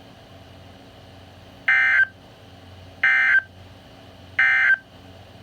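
Three short bursts of Emergency Alert System SAME digital data tones, evenly spaced about a second and a third apart: the end-of-message code that closes a NOAA Weather Radio required weekly test.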